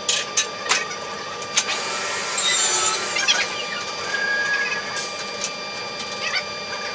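Wooden strips handled on a woodworking machine's table: a few sharp knocks in the first second and a half, then a scraping, sawing-like rub of wood about two and a half seconds in, over a steady machine whine.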